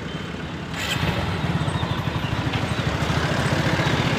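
Small motorbike engine running with a fast, even pulse as the bike pulls away and rides on. It gets gradually louder from about a second in, with road and wind noise mixed in.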